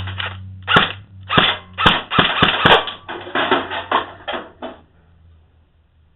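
Dboys AK74U electric airsoft rifle firing on semi-auto: a string of sharp shots, a few spaced out at first and then quicker, two to four a second, stopping a little before the end.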